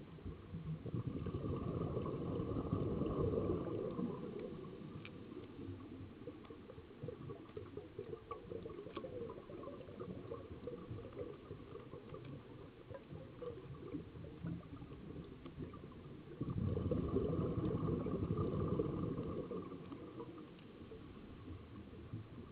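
A scuba diver's exhaled breath bubbling out of the regulator underwater. There are two long bursts, one about a second in and another about sixteen seconds in, each lasting around three seconds, with fainter bubbling between.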